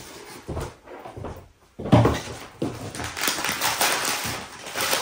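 A cardboard gift box and papers being handled on a table: a few knocks and bumps, the loudest about two seconds in, then paper and cardboard rustling.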